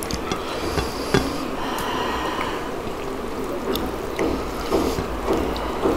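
Close-miked eating sounds of soft dhido and curry: wet chewing and squelching, with a few light clicks.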